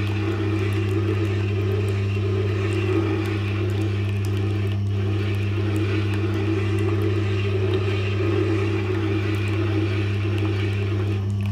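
Tormek sharpening machine running with a steady motor hum while a spindle roughing gouge, held in a jig, is rolled against its leather honing wheel with honing compound.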